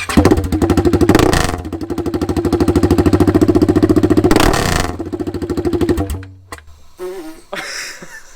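Husqvarna 701's single-cylinder engine running with its exhaust silencer removed, firing straight out of the short header pipe. It gets a quick blip about a second in, is held at higher revs for a few seconds, then shuts off about six seconds in.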